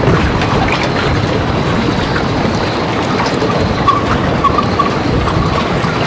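Steady wind rushing over the microphone at a marina, with a heavy low rumble, and a few faint short whistling tones in the second half.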